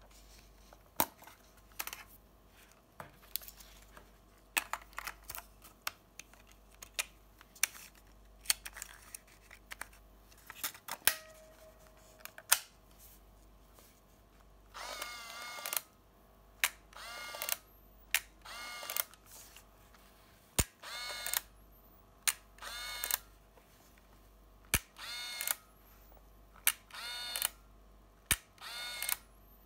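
Olympus Trip 500 compact 35mm film camera being worked by hand. First come scattered sharp clicks of its controls. From about halfway there are repeated short whirs of its small built-in motor, one every second or two, each under a second, with sharp clicks between them.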